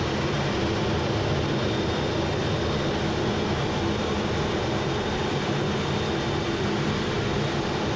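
Jet aircraft engine running with a steady, even roar and a faint high whine.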